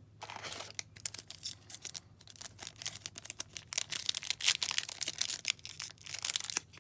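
Foil trading-card pack being torn open and crinkled by hand, a dense crackling that grows busier and louder in the second half.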